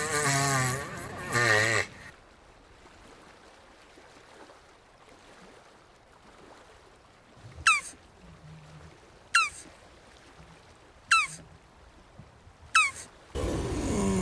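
Jabuti tortoise calling: a drawn-out, wavering low groan for the first two seconds, which starts again near the end. In the quiet between come four short, high chirps, each falling in pitch, evenly spaced about a second and a half apart.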